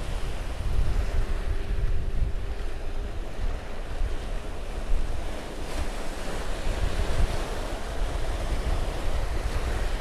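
Ocean surf breaking and washing up the sand, with wind buffeting the microphone in a low rumble.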